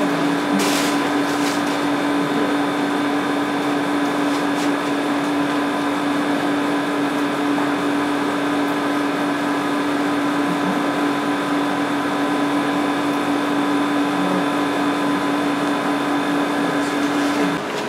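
Steady whirring hum of a room air conditioner, with one strong low hum note held throughout.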